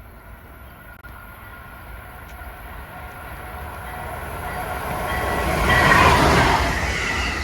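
A train approaching and passing close, its rumble and wheel noise growing steadily louder to a peak about six seconds in.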